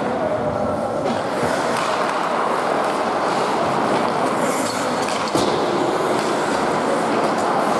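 Ice hockey play in an echoing indoor rink: a steady scraping of skate blades on the ice, with a few sharp clacks from sticks and puck.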